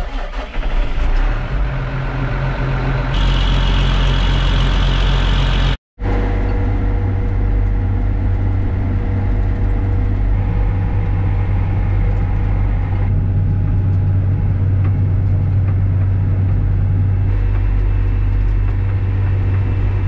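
John Deere tractor's diesel engine heard from inside the cab, starting up about half a second in and then running. After a sudden break near 6 seconds it runs on with a steady drone as the tractor drives.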